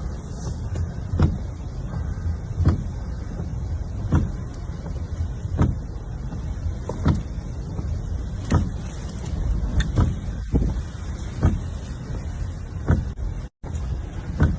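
Storm footage recorded from a moving vehicle: a steady low rumble, with a sharp knock about every second and a half. The sound cuts out briefly near the end.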